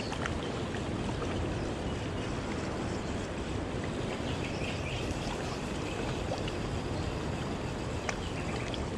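Steady rush of wind and river water along a rocky bank, even throughout, with a couple of faint clicks.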